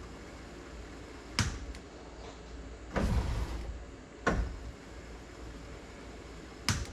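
Power window switch and motor of a 1961 Cadillac Series 62 clunking in short jolts: four sharp knocks, the second a half-second burst about three seconds in, as the passenger-side window motor tries to move.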